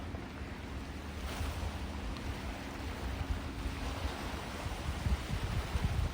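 Gentle sea waves washing onto a sandy beach, a wash of surf swelling about a second in and again past the middle, with wind rumbling on the microphone. A faint steady hum sits under it and fades out partway through.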